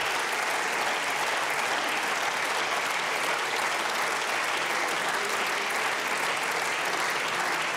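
Applause from many people clapping in the parliament benches, steady throughout.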